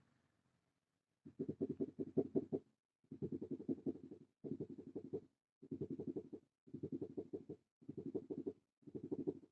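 Front-left brake caliper of a LADA XRAY Cross knocking and rattling in seven short bursts of rapid, low taps, the knock that the owner is tracing to a loose caliper.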